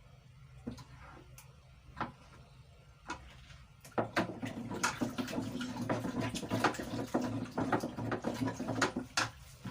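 Water being stirred in a container: a few light knocks, then from about four seconds in some five seconds of steady sloshing with many small clicks.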